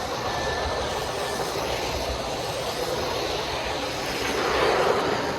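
Three-rail O-gauge model trains running on a layout: a steady rolling rumble that swells briefly about four and a half seconds in.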